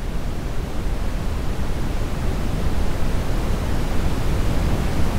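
A steady rushing noise, like hiss or static, with no tune or voice, slowly growing louder.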